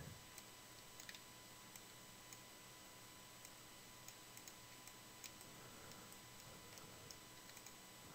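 Near silence with a faint steady hiss, broken by about a dozen faint, irregular clicks of a computer mouse.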